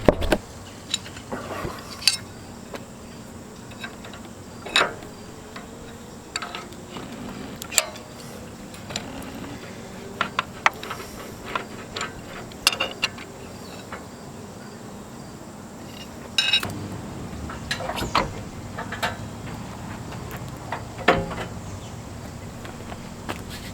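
Intermittent metallic clinks and knocks of hand tools on steel, irregular and sometimes in quick clusters, over a steady background hum. They come from work to remove a bumper-mounted spare tire carrier from a Jeep.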